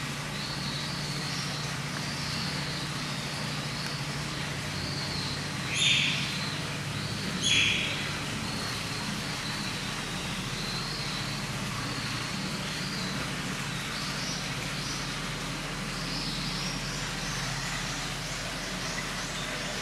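Eurasian otter calling in repeated short, high chirps, with two louder calls about six and seven and a half seconds in, over a steady low hum.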